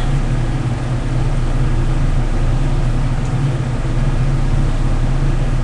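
Steady low hum under an even hiss that holds unchanged, with no distinct knocks or strokes.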